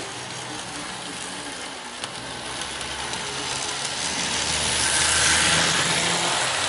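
Model train, a small Conrail diesel locomotive pulling boxcars, running on plastic roadbed track: its electric motor whirs and the wheels rumble and clatter, getting louder as it comes round the curve and passes close by about five seconds in. One sharp click about two seconds in.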